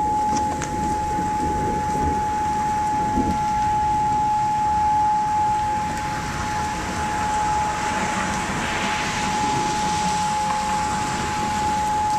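Outdoor warning siren sounding one steady, unwavering tone, with steady rainfall hissing underneath during a thunderstorm.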